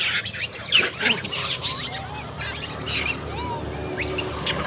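Long-tailed macaques squealing and chirping as they are fed: many short, high calls that arch up and down in pitch and overlap, busiest in the first second or so.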